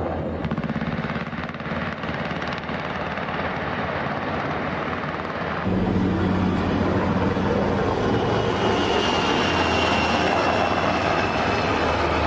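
Steady engine and rotor noise of a military aircraft in flight, heard from inside the aircraft, with a low drone. It gets louder about halfway through, and a thin high whine comes in after that.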